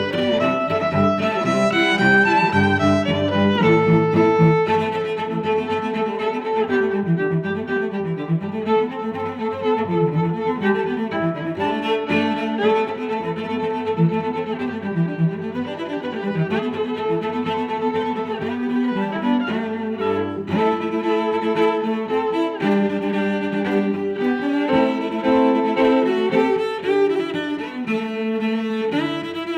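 Background music with bowed strings, violin and cello, played over the footage.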